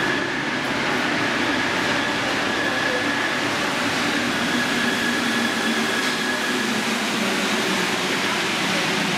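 Paris Métro Line 1 train running through the station, heard from the platform as a steady, dense running noise with a faint, steady high whine.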